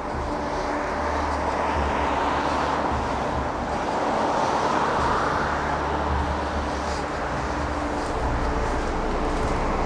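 Road traffic: vehicles passing on the street, the tyre and engine noise swelling and fading twice, with a steady engine hum coming in near the end.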